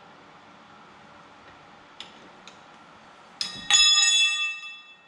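A steel tool clanks during wheel work: two light metal clicks, then a knock about three and a half seconds in, followed by a loud bell-like metallic ring that fades over about a second.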